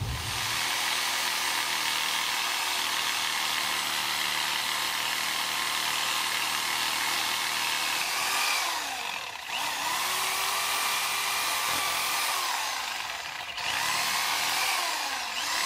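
Cordless reciprocating saw with a long wood-cutting blade, cutting through bush roots in the soil. It runs steadily for about eight seconds, then its motor speed rises and falls as the trigger is eased, nearly stopping twice.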